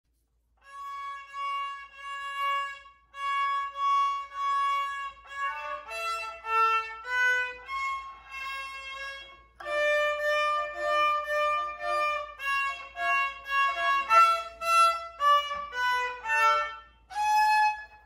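Solo violin played by a young child, a short unaccompanied tune: two phrases of long held notes, then quicker stepping notes, ending on one held note.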